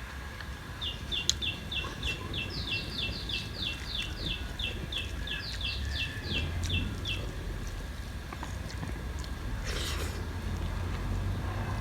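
A bird calling: a fast run of short, high chirps, each dropping in pitch, about four a second for some six seconds, over a low rumble.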